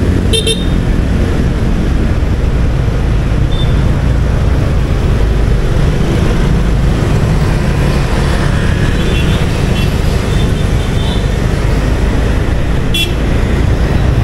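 Busy street traffic heard from a moving motorbike: a steady low rumble of engines and road, with short horn beeps just after the start and again near the end, and a few fainter beeps in the middle.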